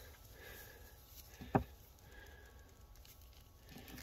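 Mostly quiet handling of a wire, ring terminal and crimping tool, with one sharp click about a second and a half in.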